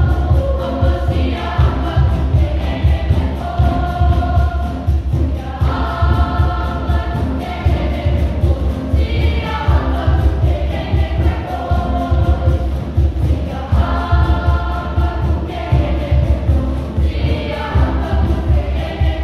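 Boys' choir singing an upbeat song in unison over a fast, steady drum beat.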